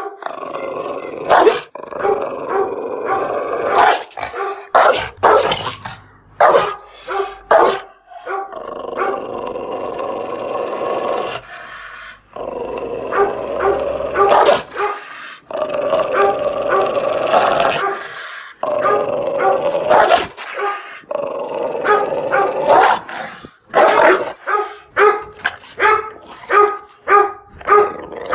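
Angry dog growling in long stretches, broken by sharp barks. Near the end it barks in a fast run of about two barks a second.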